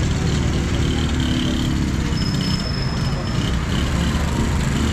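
Street traffic noise: motorcycle and auto-rickshaw engines running close by as a steady low rumble. A thin high squeal lasts about a second, a little after two seconds in.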